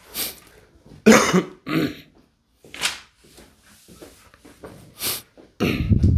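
A person coughing and clearing their throat in a series of short, separate bursts, with a heavier, deeper one near the end.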